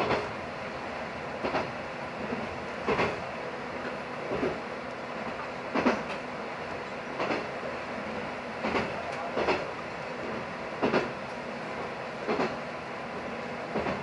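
JR West KiHa 120 diesel railcar running on jointed track. Its wheels click over the rail joints about every one and a half seconds, over a steady engine and rolling drone.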